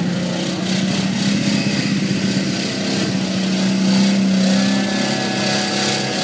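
Pickup truck engine running steadily as the truck drives through mud, swelling a little louder and higher about four seconds in.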